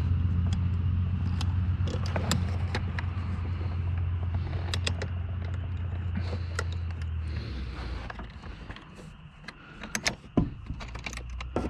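Small plastic and metal door parts clicking and tapping as they are handled and fitted into a car door, over a low steady hum that cuts off about seven seconds in. A louder cluster of knocks comes near the end.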